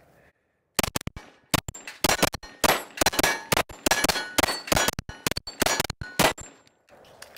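Canik TTI Combat 9mm pistol fired in a rapid, uneven string of shots, with steel plates and targets clanging and ringing as they are hit. The string stops shortly before the end.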